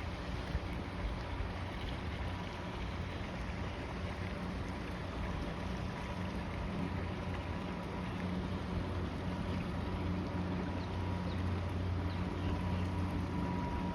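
40-foot Razorcat catamaran running under power: a steady engine drone mixed with wind and water rush, with a thin whine that grows stronger near the end.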